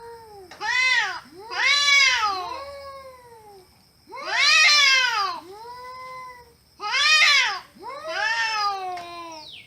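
Domestic cat meowing repeatedly, about eight long drawn-out meows that rise and then fall in pitch, some loud and some softer, with short pauses between them.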